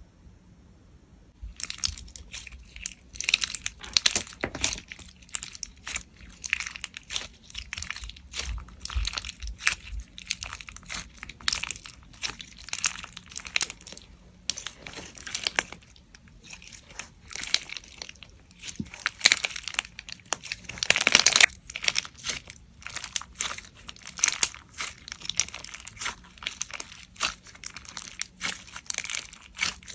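Slime being squished and worked by hand, making dense, irregular crackling and popping clicks that start about a second and a half in, with a louder burst about two-thirds of the way through.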